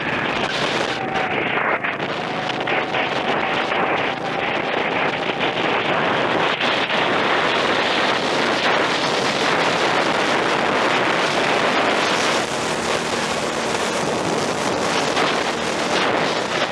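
Heavy, steady wind buffeting on the microphone of an onboard camera on a SODI rental kart at speed. It covers the kart's own engine sound.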